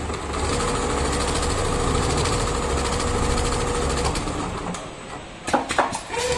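Automatic pattern sewing machine stitching through a thick padded cushion: the needle runs at a steady fast rate over the motor's hum. After about four seconds the stitching stops, and a few sharp clacks follow near the end.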